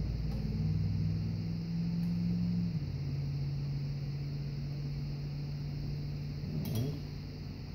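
A steady low mechanical hum whose pitch pattern shifts about three seconds in, with a single sharp click near the end.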